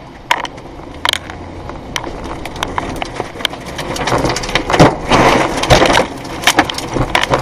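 Tornado wind buffeting a car, heard from inside the cabin, with rain and flying debris striking the windshield and body in many sharp cracks and knocks. The wind noise builds steadily and is loudest about five seconds in.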